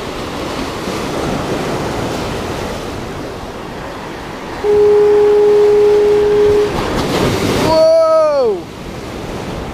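Surf breaking against the jetty's boulders. About five seconds in, a horn sounds one steady low note for about two seconds. Near the end a voice calls out once, falling in pitch, as a big wave breaks.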